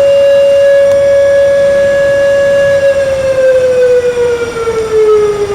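Car park fire alarm siren wailing loudly like a civil defence siren: one steady tone that, about three seconds in, starts sliding down in pitch as it winds down. The alarm was set off by a malfunction, not a fire.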